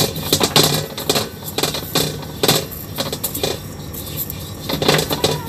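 Half a white radish on a chopstick rubbed around a hot aluminium wok: irregular scraping with sharp metallic clicks and taps as the radish and chopstick knock against the pan, seasoning it so fish will not stick.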